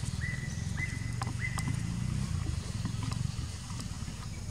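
A high whistled call repeated four times about every half second in the first couple of seconds, each note sliding up quickly and then holding steady, over a steady low rumble, with a few faint clicks.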